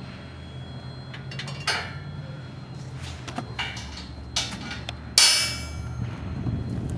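Steel flip-over trailer ramps being folded over by hand, giving a few metal clanks and one loud ringing clang about five seconds in as the ramp comes to rest. A steady low hum runs underneath.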